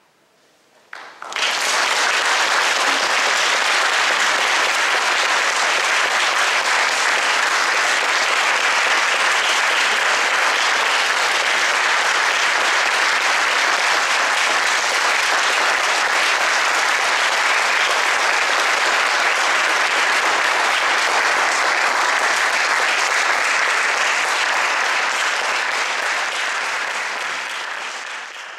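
Audience applauding: clapping breaks out about a second in, holds steady, and fades out near the end.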